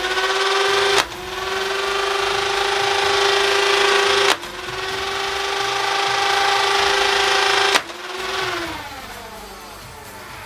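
Dart Zone Thunderbolt's electric flywheels spun up to a steady whine while three darts are fired, one shot about every three and a half seconds. The motor's pitch dips and recovers after each shot, and the flywheels spin down after the third.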